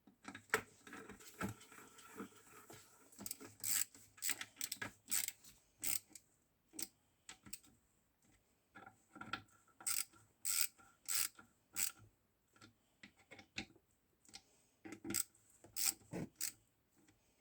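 Zündapp KS 600 gearbox parts being handled on the bench: an irregular run of short scraping, rubbing and clicking strokes, in clusters with pauses.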